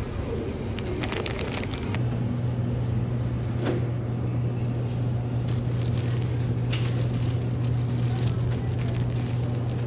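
Supermarket background sound: a steady low hum that grows louder about two seconds in, with scattered light clicks and rustles of packaging being handled.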